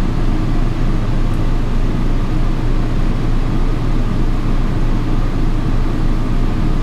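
Steady, loud low machinery hum and rumble, unchanging throughout, of the kind made by a running generator or air-conditioning unit.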